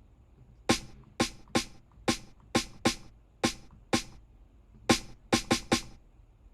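A sampled snare-drum one-shot played in by hand about a dozen times in an uneven rhythm, each hit short and sharp.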